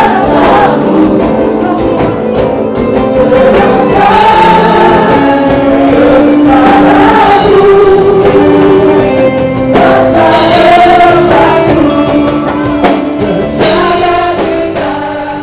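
Indonesian Christian worship song, with voices singing over instrumental backing. It begins to fade out near the end.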